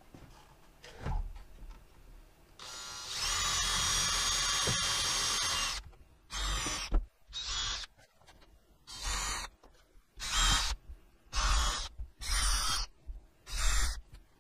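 Cordless drill-driver running steadily for about three seconds, then in a string of short bursts, driving screws into a wooden frame.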